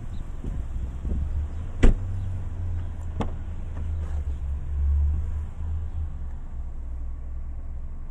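Rear door latch of a Nissan Rogue clicking sharply as the door is opened, followed by a weaker click about a second and a half later, over a low rumble of wind on the microphone.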